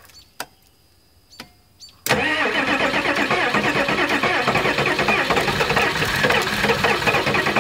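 A few faint clicks, then about two seconds in the 1985 Ford F350's 6.9 IDI V8 diesel is suddenly cranked over on the starter and keeps turning over loudly, the first start attempt after sitting about 15 years.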